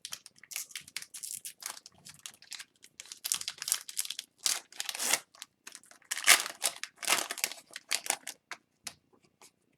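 Hockey trading cards being handled, slid and flipped against one another, making quick papery swishes and clicks.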